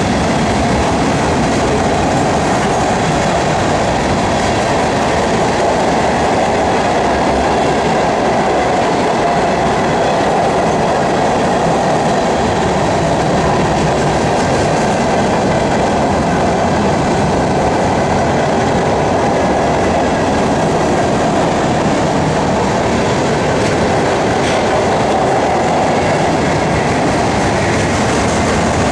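Freight train cars rolling past on steel wheels: a steady rumble and clatter of wheels on rail, with faint high ringing tones held over it.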